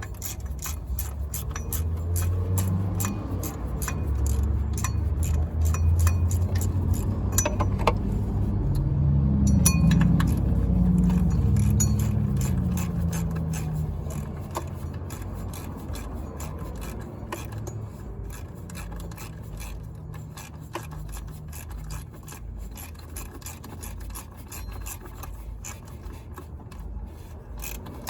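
Metal hand tools clicking, clinking and scraping while working on the engine, under a low rumble that swells over the first ten seconds or so and then fades.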